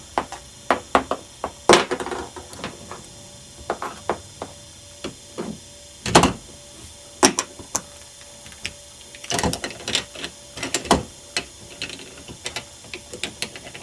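Plastic Lego pieces clicking and knocking as a hand rights and handles a small Lego car on a hard floor. The clicks and taps come irregularly, a cluster of them about nine to eleven seconds in, over a faint steady hum.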